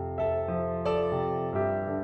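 Background piano music: soft notes struck about twice a second, each ringing on.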